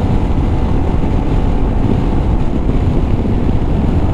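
Honda ADV350 scooter's single-cylinder engine running at a steady highway cruise, under heavy wind rush over the microphone.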